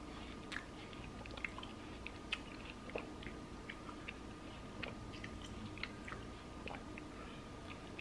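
A mouthful of grapes being chewed close to the microphone: a run of small, irregular clicks.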